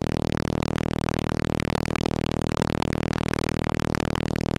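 Helicopter cabin noise: the engine and rotor running steadily as a drone with a quick, even pulsing from the rotor blades.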